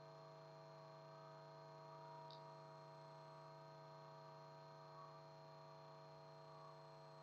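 Near silence with a faint, steady electrical hum, as from a sound system's mains hum.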